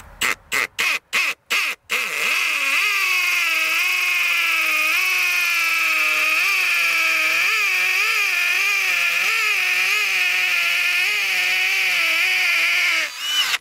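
Cordless drill boring a 5/16-inch hole into a concrete wall for an anchor. A handful of short trigger pulls come first, then about eleven seconds of steady drilling, the motor's whine wavering and dipping again and again as the bit loads up.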